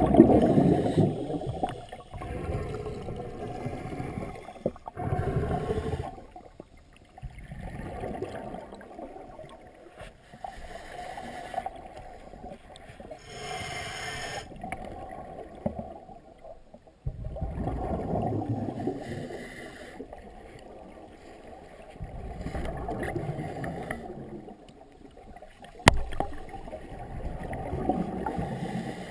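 Scuba diver's exhaled bubbles gurgling out of the regulator in repeated bursts every few seconds, one burst per breath, heard muffled underwater through the camera housing. One sharp click about 26 seconds in.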